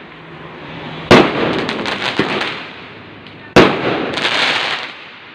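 Fireworks going off: a loud bang about a second in and another about two and a half seconds later, each followed by a couple of seconds of crackling.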